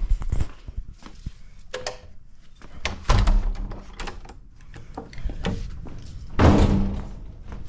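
A door being handled: a string of knocks and thuds, the loudest about three seconds in and again near the end.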